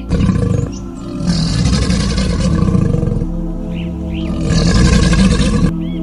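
Crocodilian calling in long, rough, noisy bouts, loudest at the start, in the middle and near the end, then cutting off suddenly; soft background music runs underneath.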